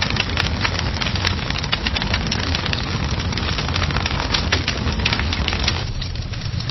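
Fire crackling: a dense run of sharp snaps and pops over a low steady rumble. About six seconds in it changes abruptly to another fire with quieter, sparser crackles.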